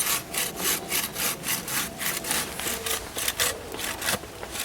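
Hand saw cutting through firewood in quick, even back-and-forth strokes.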